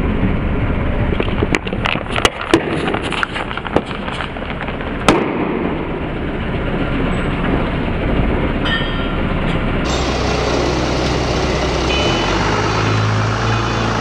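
Paper cups crunching and popping flat under a forklift tyre: a run of sharp cracks over the first five seconds. The forklift's engine runs underneath.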